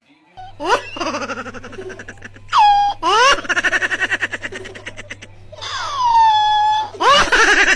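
High-pitched laughing voice added as a sound effect: about four bouts of rapid 'ha-ha-ha' giggling, several of them opening with a rising squeal, over a faint steady hum.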